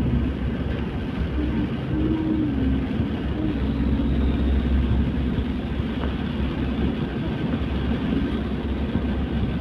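Steady low rumble of a moving vehicle on a wet road, heard from inside the cabin: engine and tyre noise.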